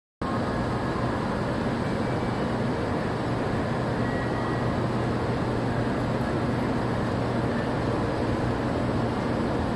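Steady hum and hiss of the Doctor Yellow track-inspection shinkansen standing at the platform, its onboard equipment running, mixed with the station's background noise.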